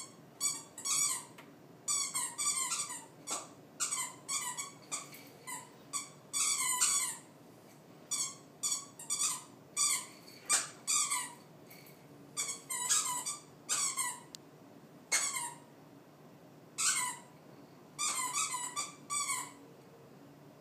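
Squeaker in a plush octopus dog toy squeaking over and over as a goldendoodle puppy chews and shakes it: short, high squeaks in irregular clusters, often two or three in quick succession, with a few brief pauses.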